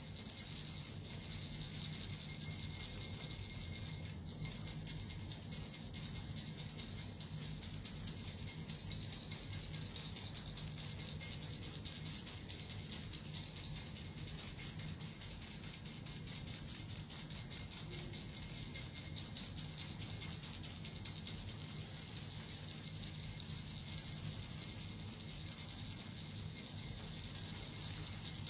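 Small jingle bells (suzu) shaken without pause, a continuous dense high jingling with a short dip about four seconds in.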